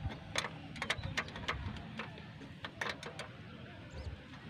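Scattered light clicks and taps of starter motor parts being handled and set down during disassembly.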